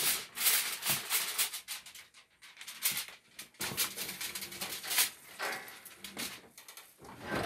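Thin, cheap aluminium foil crinkling and rustling in repeated bursts as a foil-covered baking pan is handled and set into an oven.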